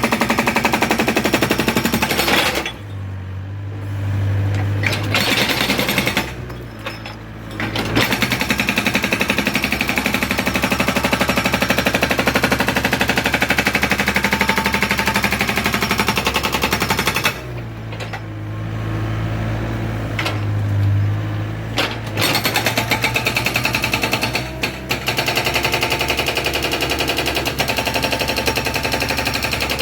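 Excavator-mounted hydraulic breaker hammer pounding in rapid, continuous blows. It stops three times, for a few seconds each, about three seconds in, about six seconds in and around the middle, leaving the excavator's engine running with a steady low hum.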